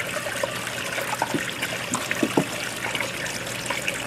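Water running and trickling steadily through a gem-mining sluice, with a few light knocks partway through.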